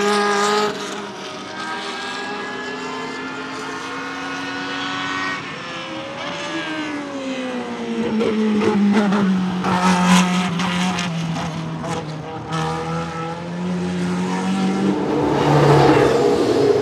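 Tyrrell 012's Cosworth DFY V8, a short-stroke Formula 1 engine, running: the revs drop and climb again through several gear changes, then hold low and steady for several seconds before the engine grows louder near the end.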